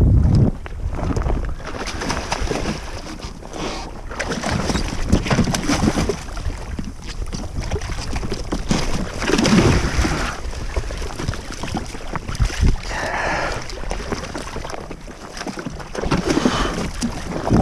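Wind buffeting the microphone and water splashing around a jet ski at sea, swelling louder every few seconds.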